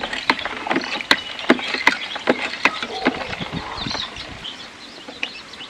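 Irregular sharp clicks and taps with a few faint chicken clucks among them, growing quieter in the second half.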